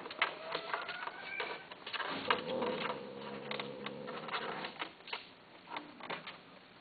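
Cats mating in a wire cage: irregular rattling and tapping of the cage as they move, with a drawn-out low, wavering cry through the middle.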